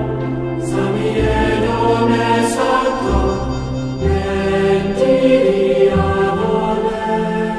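Background music: a slow, chant-like piece with sustained choir voices.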